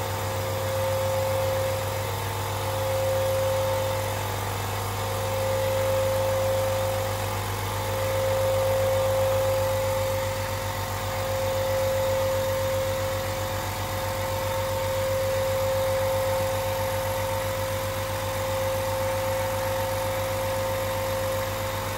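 SIP QT100/10 low-noise air compressor running and filling its tank. Its two pumps give a steady low hum with an even mid-pitched tone, swelling slightly in loudness every few seconds.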